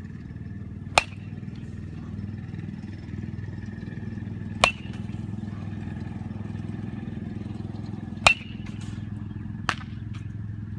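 Baseball bat hitting pitched balls: three sharp cracks about three and a half seconds apart, each with a brief ring, and a fainter knock near the end. A steady low hum runs underneath.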